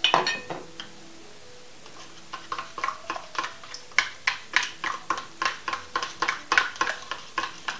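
A metal teaspoon stirring salad dressing in a plastic cup, clicking against the cup's wall about four times a second, after a sharp knock as the spoon is picked up and set in.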